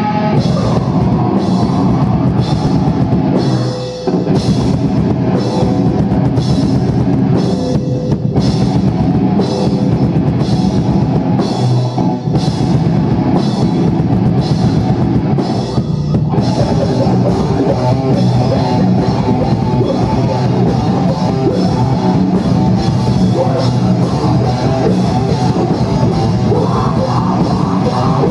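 Live heavy rock band playing loud, with distorted guitars and drums. Through the first half the music breaks off briefly about every four seconds before crashing back in.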